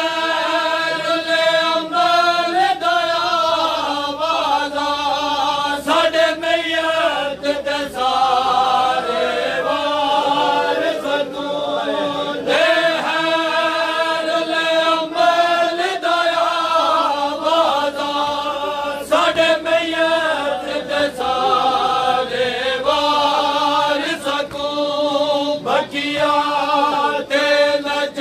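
Male voices reciting a noha, a mournful Shia lament, in long held sung lines. Short slaps sound through it, the kind made by men beating their chests (matam) as they stand around the reciter.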